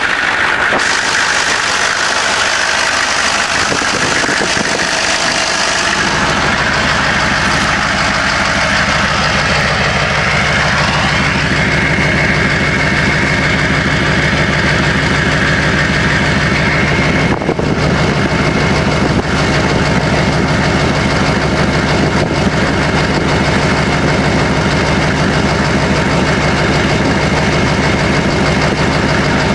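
GM 6.5-litre turbo diesel V8 running, with the turbocharger's whistle as a steady high tone over the engine. The engine's low, even pulsing becomes strong about six seconds in, and there is a brief dip in the sound about halfway through.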